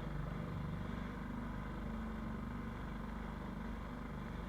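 Small fishing boat's motor running steadily underway, an even low drone.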